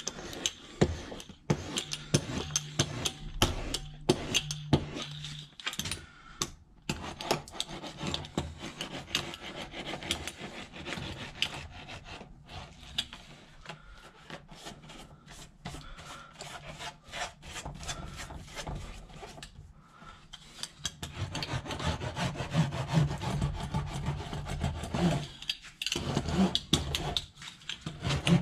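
A hand roller and a hand pressing a foil-faced bitumen sound-deadening sheet onto a plastic sewer pipe: continuous irregular rubbing, scraping and crinkling of the foil.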